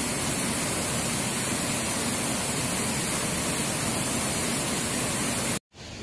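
Waterfall pouring over a stone ledge, a loud, steady rush of falling water. It cuts off abruptly near the end and gives way to a fainter rush of river water.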